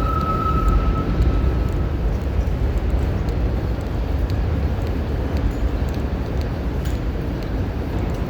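New York subway train running, a steady low rumble, with a high whine that fades out about two seconds in.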